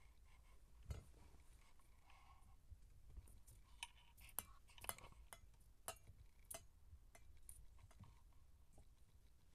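Faint scuffling of Siamese kittens at play: light, scattered clicks and taps from paws, claws and toy balls, thickest between about four and seven seconds in. A brief faint kitten mew comes about two seconds in.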